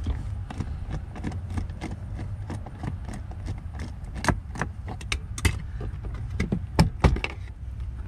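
Plastic lower dash trim panel being unbolted and pried loose: a run of sharp clicks, rattles and knocks, loudest in the second half, over a steady low rumble.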